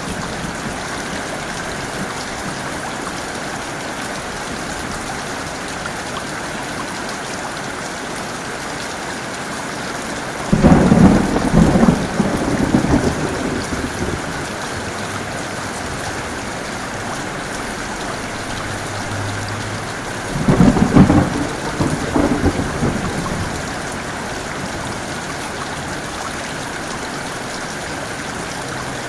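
Heavy rain falling steadily, with two loud claps of thunder: one about a third of the way in that rumbles on for a few seconds, and a second, slightly shorter one about two-thirds of the way in.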